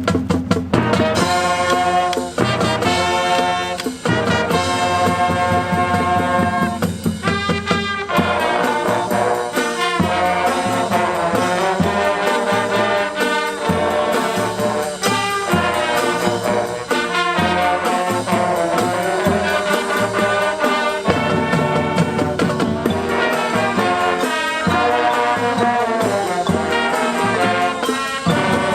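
High school marching band playing: brass section over a drumline, entering together loudly right at the start and playing on without a break.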